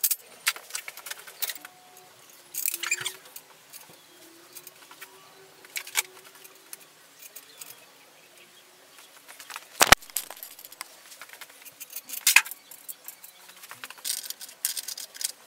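Scattered metallic clinks, clicks and clatters of tools and steel scooter parts being handled at a workbench, with one sharp knock about ten seconds in.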